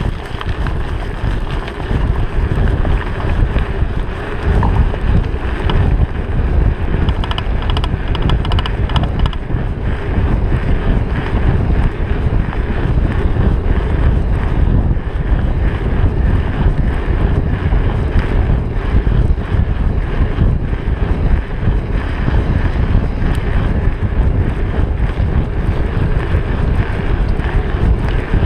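Heavy wind rumble buffeting a GoPro's microphone during a fast mountain-bike descent on a rough road, steady and gusty throughout.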